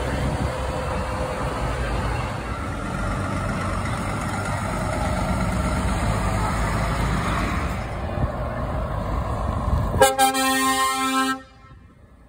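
Heavy trucks driving past with their diesel engines running. Near the end a truck air horn sounds loudly for about a second and a half, with one short break, then stops sharply.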